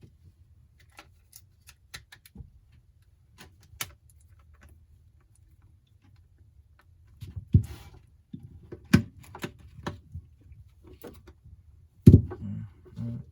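Scattered small clicks and taps of tools and phone parts being handled on a workbench during an iPhone screen replacement, sparse at first and busier and louder in the second half, with a sharper knock near the end.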